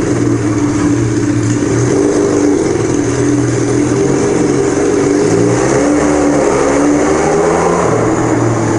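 1975 Kawasaki KZ400 parallel-twin motorcycle engine running at low speed inside a parking garage, its engine speed rising and falling a little. Loud.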